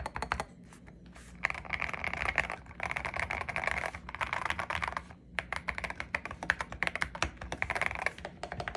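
Typing on a Next Time 75 mechanical keyboard with Akko Radiant Red linear switches: rapid runs of thocky keystrokes, broken by two short pauses, one about a second in and one about five seconds in.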